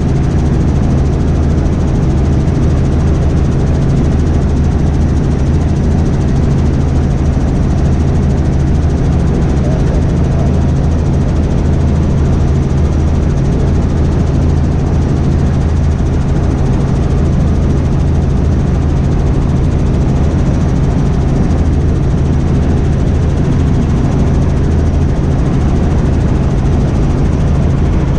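Robinson R44 Raven II helicopter in cruise flight, heard from inside the cabin: a steady, loud drone of the main rotor and its six-cylinder piston engine.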